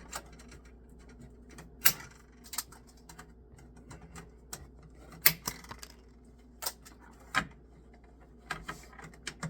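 Sharp plastic clicks and snaps at irregular intervals as zip ties are fastened and handled, the loudest near two and five seconds in and a small cluster near the end, over a faint steady hum.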